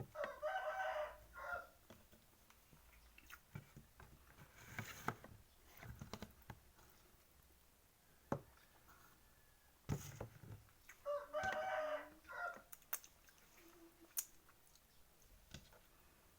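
A rooster crowing twice, about eleven seconds apart, each crow lasting a little over a second.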